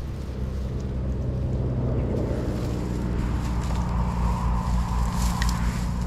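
A motor engine drones steadily, growing a little louder over the first few seconds, with a few faint crackles near the end.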